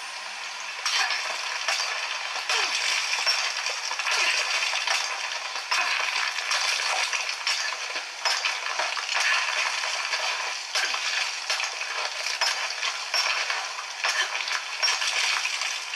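Video game sound effects: a steady crackling hiss dotted with many small clicks and ticks.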